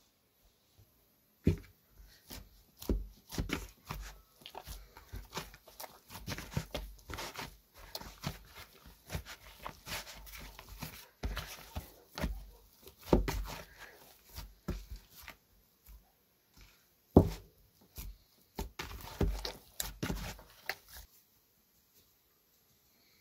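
Dough being kneaded by hand in a plastic bowl: an irregular run of thumps and rubbing as it is pressed and folded, stopping about three-quarters of the way through.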